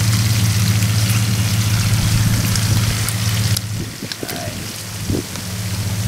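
Rat pieces frying in hot oil in a non-stick pan: a steady crackling sizzle over a low hum. The sizzle and hum drop away abruptly a little past halfway and return near the end.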